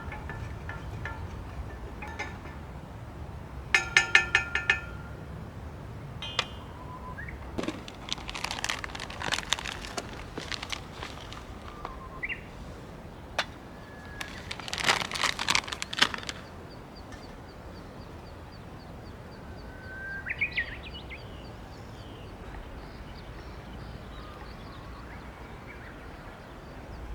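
Sharp metal clinks, one with a short ringing tone about four seconds in, then two runs of quick clicking and scraping, like a utensil working in a cup or pot. Small birds call in between, including a fast high trill, over a low wind rumble.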